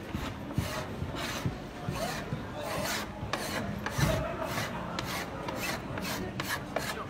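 A hand scraper blade dragged in repeated strokes down the boards of a timber tongue-and-groove door, scraping off lead paint softened by chemical stripper. The strokes come faster toward the end.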